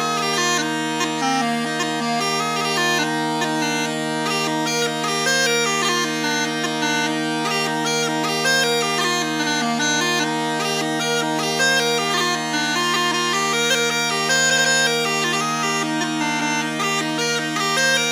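Scottish smallpipes playing a traditional tune, the chanter's melody moving over a steady, unbroken drone, with a fiddle bowed alongside.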